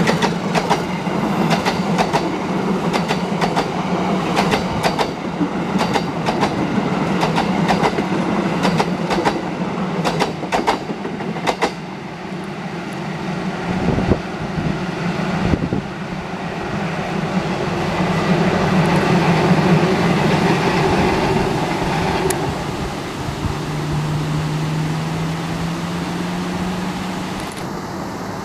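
Passenger train coaches rolling past close by, their wheels clacking rapidly over the rail joints for about the first twelve seconds, then a steady rumble as the train runs on around the curve. A low steady hum sounds for a few seconds near the end.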